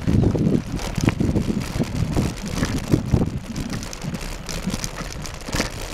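Wind buffeting the microphone and the bumpy rumble and rattle of a mountain bike rolling over a rough dirt track, with a few sharp knocks from jolts.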